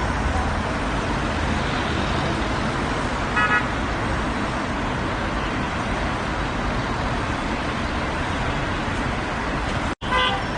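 Steady roar of road traffic, with a short car-horn toot about three and a half seconds in. Near the end the sound cuts out for an instant, and another brief honk follows.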